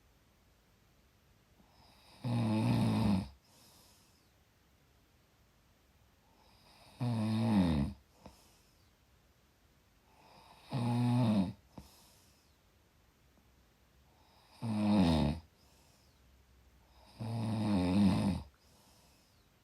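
Snoring in a slow rhythm: five snores, each about a second long, a few seconds apart, with near quiet between them.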